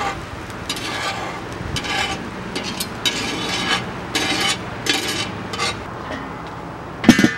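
A cooking utensil stirring and scraping against cookware in repeated short strokes, roughly two a second, with a louder clatter near the end.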